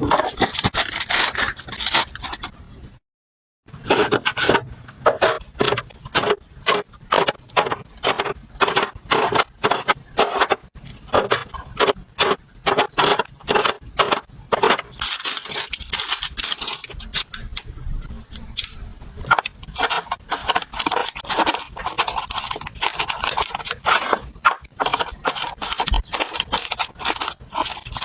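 Quick clicks, taps and scrapes of kitchen containers and packaging being handled and set down, with a brief cut to silence about three seconds in.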